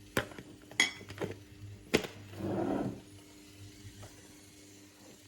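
Spoon and kitchenware handling while coffee is spooned out for a drink: a few sharp clicks and clinks and a brief rustle about halfway through, over a steady low hum.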